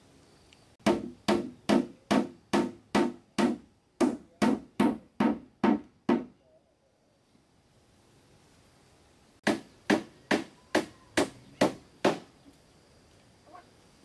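Steady, evenly spaced blows of a hand tool, about two a second: thirteen strikes, a pause of about three seconds, then seven more.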